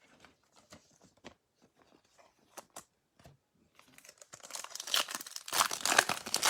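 A few faint clicks of cards being handled, then a trading card pack's foil wrapper being torn open and crinkled, building up and loudest near the end.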